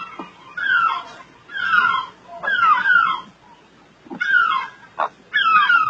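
Heron calling: a series of short squawks, each falling in pitch, about one a second.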